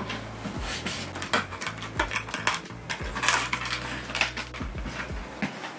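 Knife slitting the packing tape on a large cardboard box, with irregular scratchy scrapes and clicks of cardboard being handled.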